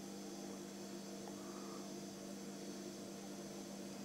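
Faint steady electrical hum with a low constant tone and light hiss: room tone.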